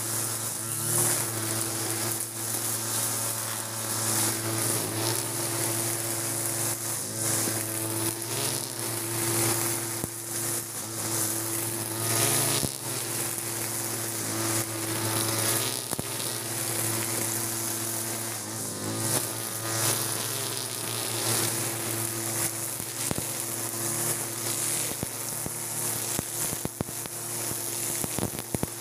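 Backpack brush cutter with a TB43-type two-stroke engine running steadily while its trimmer head whips 2.4 mm nylon line through grass, giving a high hiss and a rapid scatter of ticks as the line strikes stems. The engine eases off briefly a few times.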